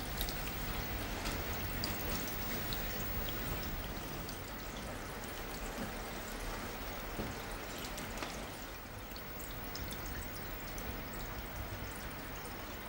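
Steady running water rinsing a waterlogged cloth garment in a stainless steel tray, with a few faint drips and taps.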